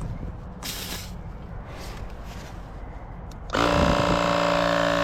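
Portable electric tire inflator switching on about three and a half seconds in and running with a steady motor whine. Before it, a short hiss of air about a second in.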